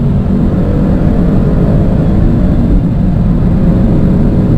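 A car engine at full throttle under hard acceleration: a loud, steady, deep engine sound with no gear-change break.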